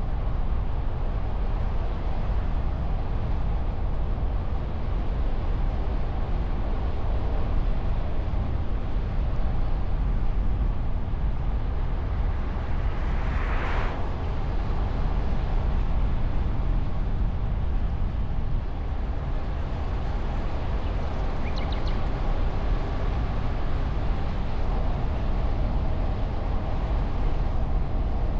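Car driving along the road: steady low rumble of tyre, wind and engine noise picked up by a camera on the car's hood behind a foam windscreen. A brief whoosh swells and fades about halfway through.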